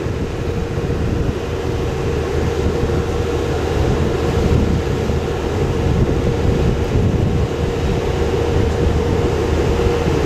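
Hydraulic system of a trailer-mounted Ferris wheel running during setup, a steady whine over a low rumble, while a work platform on the wheel is moved.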